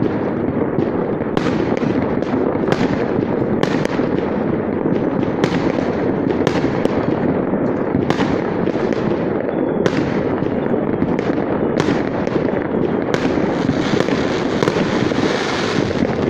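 Many aerial fireworks going off across a whole city at once: a continuous dense din of overlapping bursts, broken by many sharper bangs at irregular intervals.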